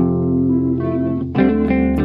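Background music: guitar-led instrumental with bass, a held chord and a new set of notes coming in about halfway through.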